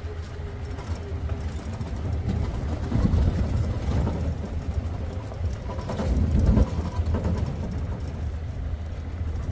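Safari vehicle's engine running as it drives along a forest track, with a steady low rumble that grows louder about three seconds in and again about six seconds in.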